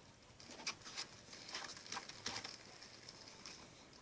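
Shaving-cream and clear-glue slime being stirred in a bowl: faint, irregular sticky squelches and small clicks as it clumps together.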